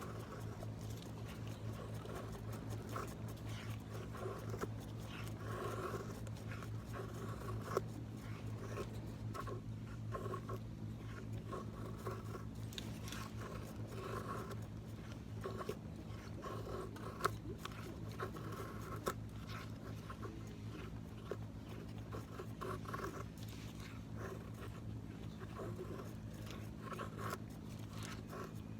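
Knife blade scraping along wood in repeated short strokes, with a few sharp clicks, as in carving a feather stick.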